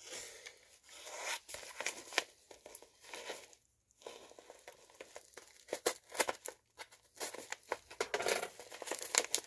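Yellow padded mailer being torn open by hand, its paper crinkling and ripping in short irregular rips and rustles, with a brief pause about three and a half seconds in.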